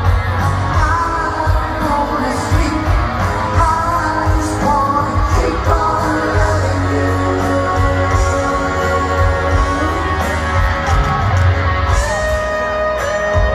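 Live rock band with a lead singer playing through a large outdoor concert sound system, heard from the lawn far back from the stage, with a steady bass line under the vocals and guitar.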